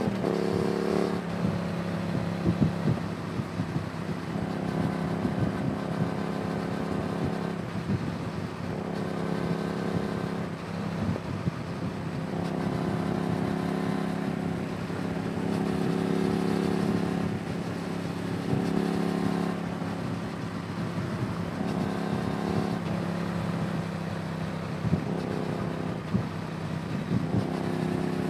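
Yamaha MT-07 parallel-twin engine running through an aftermarket IXIL exhaust. Its note holds steady for a few seconds at a time, then shifts pitch, several times over, with a rough low rumble underneath.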